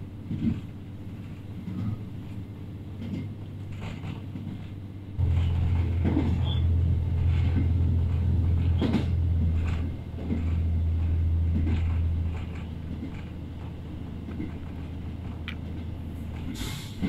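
Inside a JR Hokkaido H100 'DECMO' diesel-electric railcar on the move: a low drone that steps up sharply about five seconds in, dips briefly around ten seconds and falls back at about twelve seconds, with scattered light knocks.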